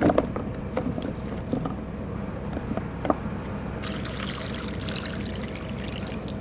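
Cut vegetables knocking and rustling as they are pressed into a plastic tub, then pickling liquid poured from a bowl onto them from about four seconds in, a steady pour.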